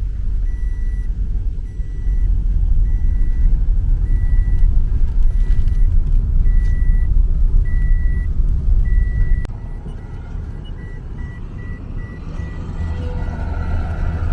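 Inside a moving car: steady low road and engine rumble, with a dashboard warning chime beeping over and over at one high pitch. About nine seconds in the rumble drops and the beeps turn quicker and shorter.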